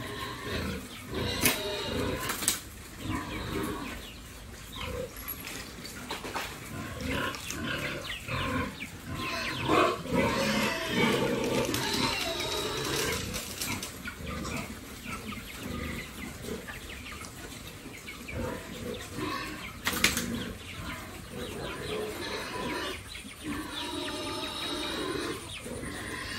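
A group of pigs feeding together at a trough, grunting and chewing, with a few sharp knocks, the loudest about twenty seconds in.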